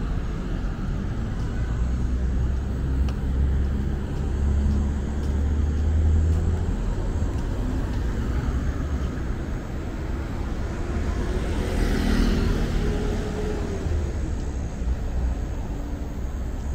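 Road traffic on a city avenue: a steady low hum of passing cars and motorcycles, heavier in the first several seconds, with one vehicle passing close about twelve seconds in.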